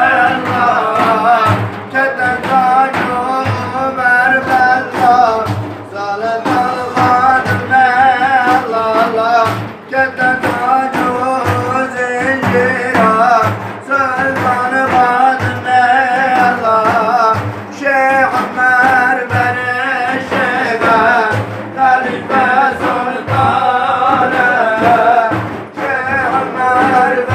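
A man singing a Sufi hymn (ilahi) in a long, wavering, ornamented melodic line, over a steady low drum beat.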